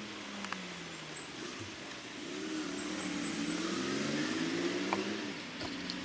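A motor vehicle's engine running, its pitch sliding down, then rising and getting louder about two seconds in, then easing off near the end.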